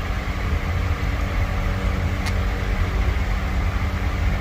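Lexus LX570 starter motor spinning steadily, powered directly so that the solenoid switch is bypassed. It runs under direct power, which shows the motor itself is good and puts the no-crank fault on the solenoid switch.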